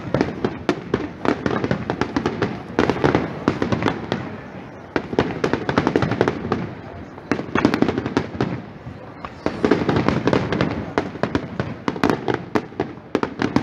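Aerial fireworks shells bursting overhead in a dense run of sharp pops and crackles, swelling and easing in waves every few seconds.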